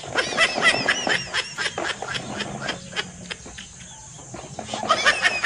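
Small birds chirping busily: many short, quick calls overlapping in two dense spells, at the start and again near the end, mixed with sharp clicks.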